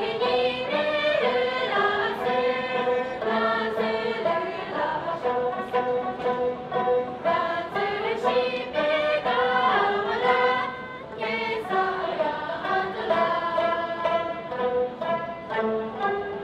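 Group of young women singing in unison while strumming dranyen, the long-necked Tibetan lute.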